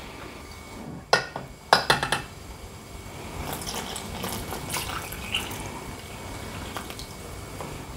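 Milk poured from a mug into a bowl of flour, then a spoon clinking against the enamel bowl and mug a few times, and soft scraping as the batter is stirred.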